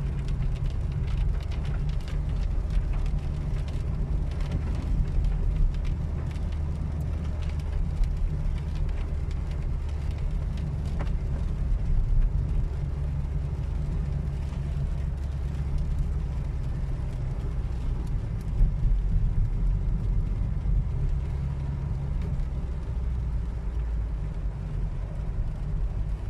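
Car cabin noise while driving on a wet road: a steady low rumble of engine and tyres, with scattered faint ticks over it.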